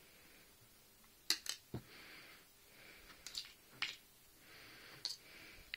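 Thin craft wire being wound by hand around another wire: faint scattered clicks and ticks of the wire ends against each other and the fingers, with soft scratchy rustling between.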